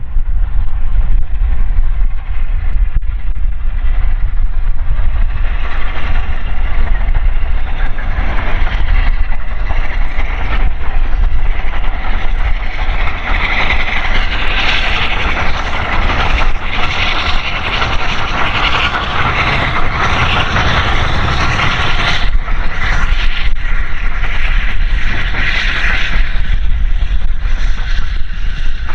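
A steam-hauled train passing, its running noise building over several seconds, strongest for a stretch in the middle, then falling away near the end. Wind buffets the microphone with a steady low rumble throughout.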